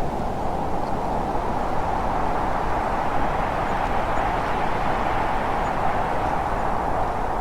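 Snowstorm wind blowing steadily: a continuous rushing noise with a deep rumble underneath, swelling slightly about midway.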